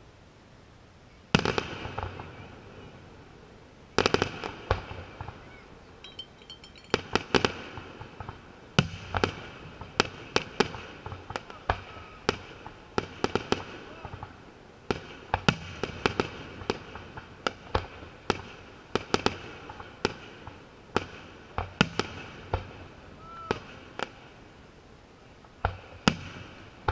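Aerial fireworks shells bursting in a long series of sharp bangs, each followed by echo, beginning about a second in.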